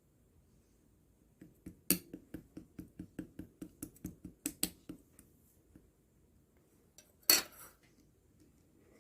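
Quick hard clicking taps, about five a second for some three seconds, then one louder single click near the end.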